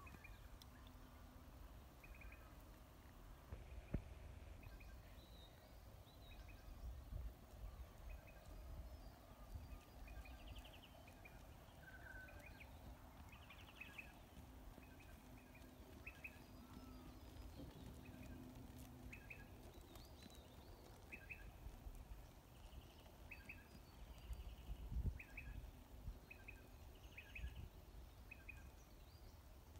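Near silence: faint outdoor ambience with a low rumble and short high bird chirps repeating about once a second from the middle on, plus a soft knock about four seconds in.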